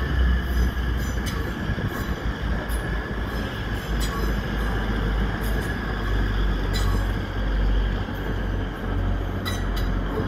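Grand Central Class 180 diesel multiple unit running past on an adjacent track, a steady low rumble of engines and wheels with occasional sharp clicks.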